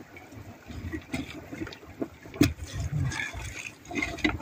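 Potatoes and spinach tipped from a glass dish into a pot of boiling broth: watery splashes and plops, with one sharp knock about two and a half seconds in.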